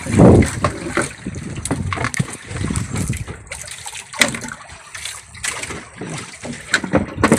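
Water splashing and sloshing around a small fishing boat, with irregular knocks and rustles from handling a caught fish over the boat's live-well box. The loudest moment is a burst just after the start.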